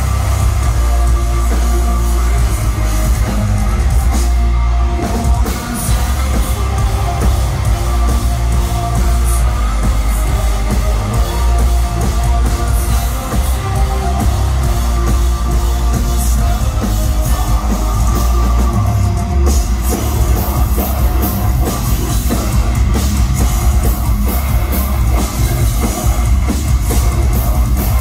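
Live heavy rock band playing loud through the club's PA, with drum kit, bass, guitars and keyboards, heard from among the crowd.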